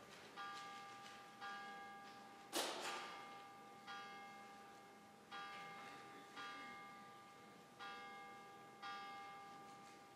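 A single bell tolling at the same pitch, struck about once every second and a bit, each stroke ringing and fading before the next. One stroke about two and a half seconds in is louder and sharper. Faint overall.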